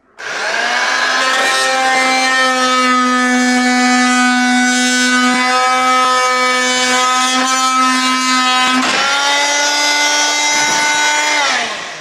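Corded Rockwell oscillating multi-tool running with a steady buzzing whine while its blade scrapes along the edge of a pickup's rear window opening. About nine seconds in the pitch steps up slightly, and the tool winds down just before the end.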